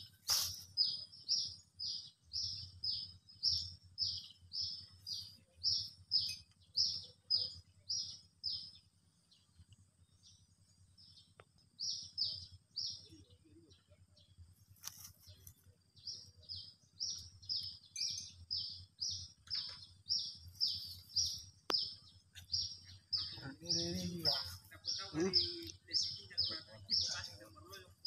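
A bird repeating a short, high chirp about three times a second, steadily, with a pause of a few seconds about a third of the way through. A sharp click right at the start and two brief low vocal sounds near the end.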